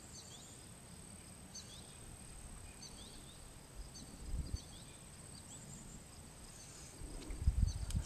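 Faint rural outdoor ambience: a steady high insect drone with scattered short bird chirps over it. A low rumble comes in briefly about halfway through and again near the end.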